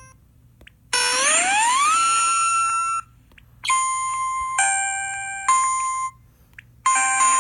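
Electronic phone alert tones played back through a small amplifier and Bluetooth speaker. First comes a rising sweep that levels off and holds, then three short stepped beeps. Near the end a steady, harsh multi-tone alert sound starts.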